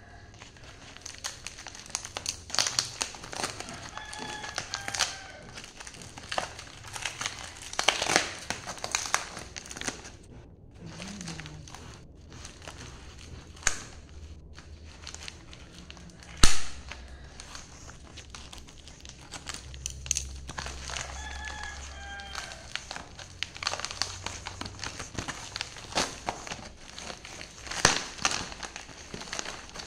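Foil-lined insulated pouch being handled and opened by hand: irregular crinkling and crackling of the metallic foil and plastic, with a single sharp click about halfway through.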